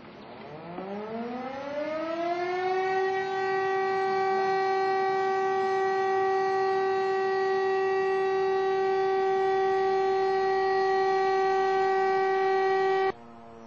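A siren winds up in pitch over about two and a half seconds, then holds one steady, loud wail, and cuts off suddenly near the end.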